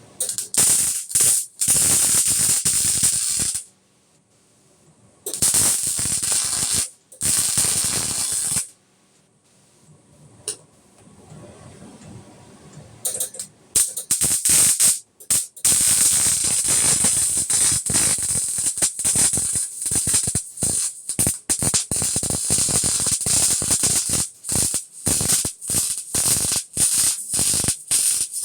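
Electric arc welding on a steel frame: a steady crackle that stops and starts as the welding runs are laid, in two short runs and then a long run broken by brief pauses.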